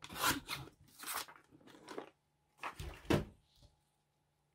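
Paper being handled on a craft table: four short rustles and crinkles spread over a few seconds.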